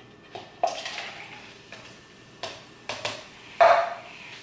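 Plastic cups being handled and set down on a wooden table, with soda being poured into them: a few sharp knocks and clatters, the loudest about three and a half seconds in.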